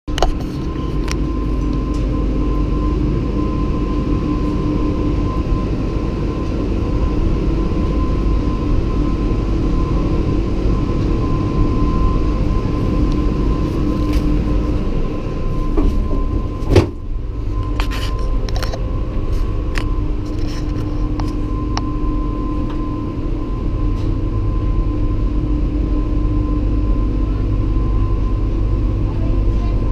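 Leitner eight-seat detachable gondola lift running in its station, a steady mechanical hum with a held whine, heard from inside a cabin. There is one loud clunk about 17 seconds in, followed by a few clicks and rattles as the cabin moves on toward the line.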